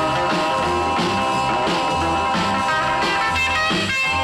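Instrumental stretch of a 1950s rock and roll record: electric guitar over a steady bass beat with drums, a bass note about every half second.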